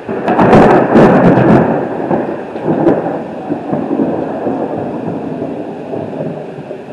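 A thunderclap: a sudden loud crackling crack about half a second in, then a rolling rumble that slowly dies away, with heavy rain falling throughout.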